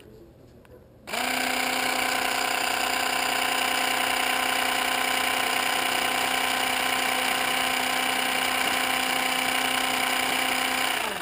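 Great Planes hinge slotting tool's small electric motor switching on about a second in and running at a steady high hum while the tool is held against a balsa edge to cut a hinge slot. Near the end it stops, its pitch dropping as it winds down.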